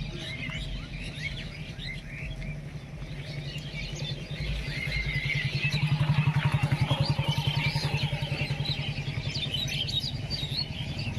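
Many birds chirping in quick, overlapping calls. Under them a motor engine runs with a low, pulsing hum that grows louder toward the middle and then fades slightly.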